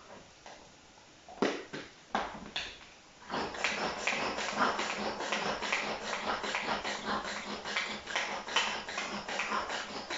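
Small kitchen knife scraping and peeling a vegetable over a bowl. A few separate scrapes come first, then from about three seconds in rapid, continuous rasping strokes.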